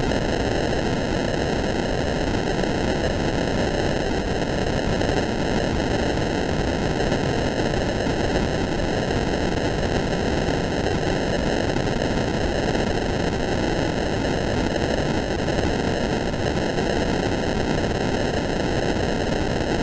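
Loud, steady static noise, unchanging and slightly hollow-sounding: a 'blind and deaf' sound effect.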